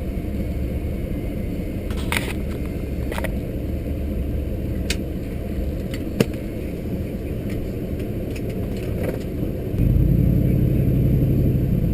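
Low, steady rumble of a car driving, heard from inside the vehicle, with a few sharp clicks scattered through it. The rumble grows louder near the end.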